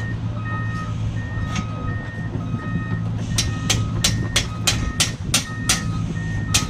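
Heavy equipment engine running steadily under a two-tone warning alarm that alternates between a lower and a higher beep about every half second. From about halfway in, a regular sharp clicking beat, about three a second, joins.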